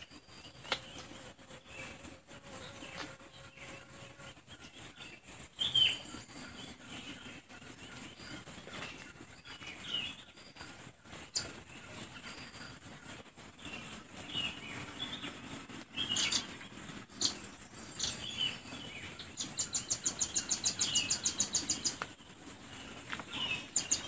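Forest birds chirping in short, scattered calls over a steady high-pitched insect drone, with a quick run of evenly spaced ticks about twenty seconds in.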